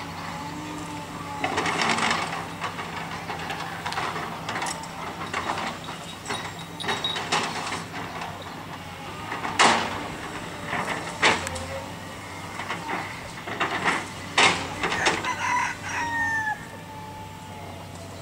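Tracked excavator's diesel engine running with a steady low hum, and sharp knocks and cracks as the bucket grips and works a tree stump, the loudest about ten seconds in and again near fifteen. Chickens call in between with short rising and falling notes.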